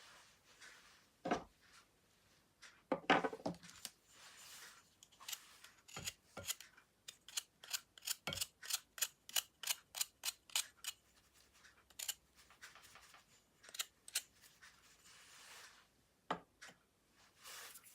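Slime being squeezed and stretched by hand, giving sharp clicks and pops as trapped air bursts, with soft squelching between. The pops come in a quick run of about three a second in the middle.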